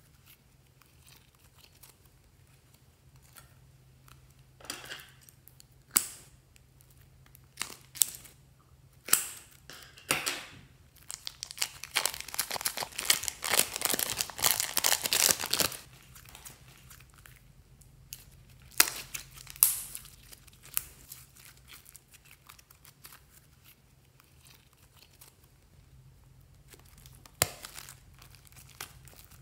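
Plastic piping bags full of slime crinkling and rustling under the fingers as they are squeezed, in scattered short crackles with a denser, louder run of crinkling around the middle.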